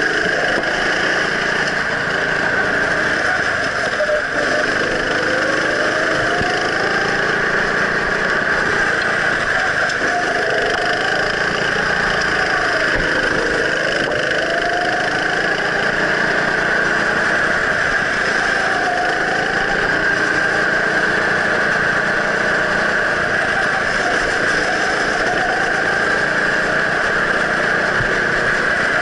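Go-kart engine running under way, its pitch rising and falling as the kart accelerates and lifts through the corners, over a steady high hiss.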